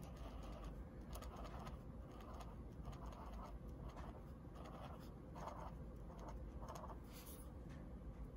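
Felt-tip marker strokes on paper: short, quick strokes, about two a second, as small areas of a coloring page are filled in, with a brief pause about seven seconds in.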